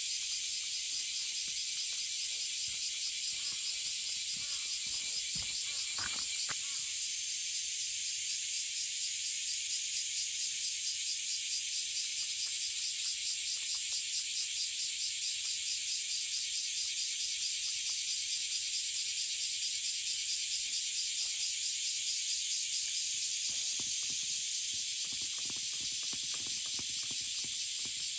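Dense summer chorus of cicadas, a steady high hiss that takes on a fast pulsing about seven seconds in and holds it.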